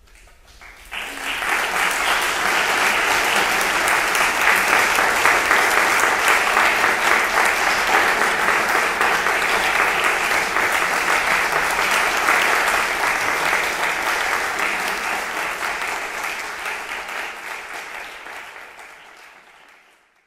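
Audience applauding after a live string orchestra performance: a dense patter of clapping that starts about a second in, holds steady, then fades away near the end.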